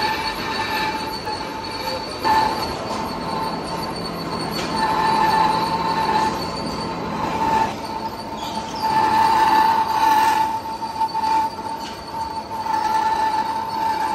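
Cutting tool squealing against a steel workpiece being turned on a vertical turret lathe: a steady high-pitched squeal that swells and fades several times over the noise of the cut.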